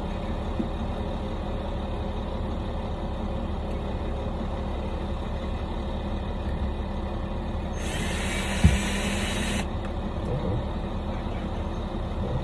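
A power drill runs in one short burst of just under two seconds about eight seconds in, with a sharp knock partway through, as a hole is started for mounting a video doorbell. A steady low rumble runs underneath.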